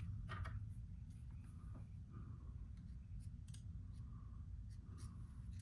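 A few scattered sharp clicks and snips of hard plastic kit parts being cut from their parts trees and handled, over a faint steady low hum.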